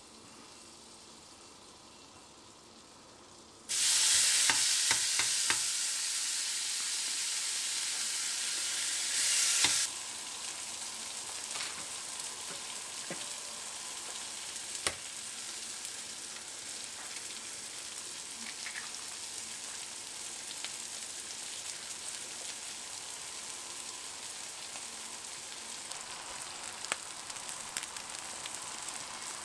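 Pork sisig sizzling on a hot cast-iron sizzling plate over a gas flame. A sudden loud sizzle starts about four seconds in as the meat goes onto the hot plate. After about ten seconds it settles into a steady, quieter sizzle with occasional crackles.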